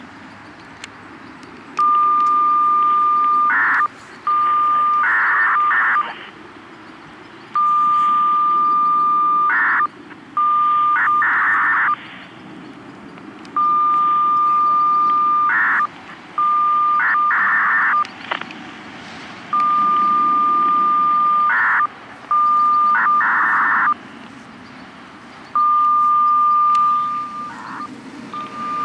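FSK radio data signal for outdoor warning siren control, repeating five times about every six seconds. Each repeat is a steady beep of about a second and a half, then a short data warble, a brief beep and a longer data warble.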